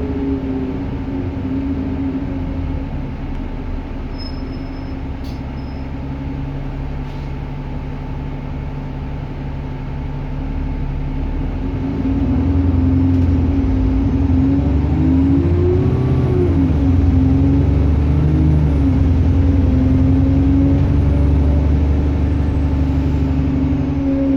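Diesel bus engine running, with a steady low drone that grows louder about halfway through as it pulls harder. A high-pitched turbocharger whine rises with it, holds, and falls away near the end.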